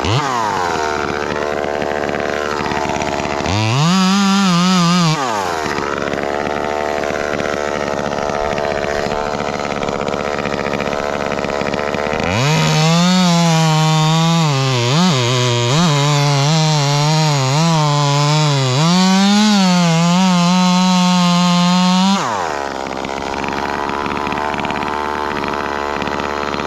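Ported Echo 2511T two-stroke top-handle chainsaw. It idles, blips to high revs briefly, then runs at full throttle for about ten seconds with its pitch dipping and recovering as it cuts, before dropping back to idle.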